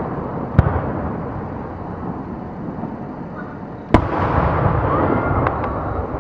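Aerial fireworks display: a sharp shell burst under a second in and another loud one about four seconds in, with a continuous crackle and rumble between them and a couple of lighter cracks after the second.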